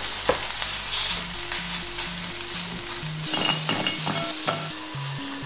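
Seasoned chicken pieces sizzling as they fry in a nonstick pan, turned with a metal spatula. The sizzling cuts off about three seconds in, followed by a few light clicks as oven fries drop from the spatula into a ceramic bowl, with soft background music underneath.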